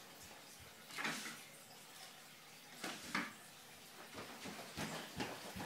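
Faint, scattered knocks and rustles of small objects being handled, with the clearest two about one second and about three seconds in.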